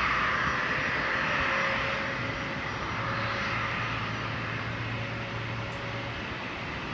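Airplane engine noise heard from beside an airfield: a steady rush with a low hum that slowly eases off.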